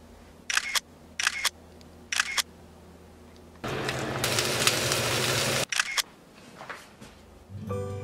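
Camera shutter clicking three times, then an egg sizzling in hot oil in a stainless steel frying pan for about two seconds, cut off suddenly, followed by another shutter click. Soft piano music begins near the end.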